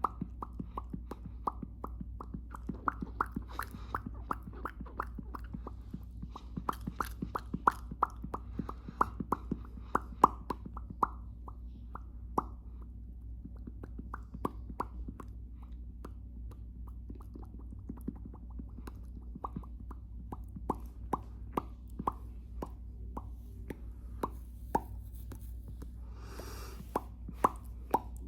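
Mouth pops made by a person: a long string of short, hollow pops, two to four a second, with a brief pause about halfway and a short breathy rush near the end.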